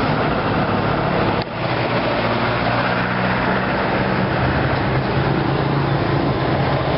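Steady street traffic noise from passing motor vehicles, with a low engine hum running under it and a brief break about a second and a half in.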